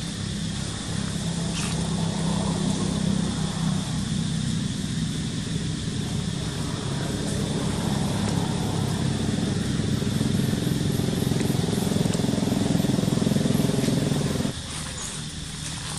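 Steady hum of a motor engine running, growing gradually louder and then cutting off abruptly near the end.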